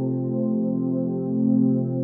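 Ambient background music of long held notes, with no beat.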